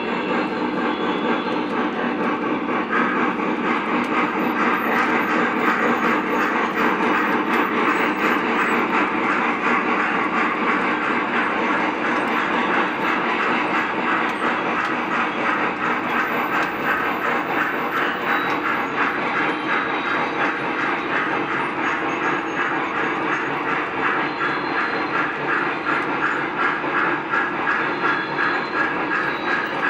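Lionel O-gauge model trains running on three-rail track: a steady rumble of wheels and motors with fine, rapid clicking.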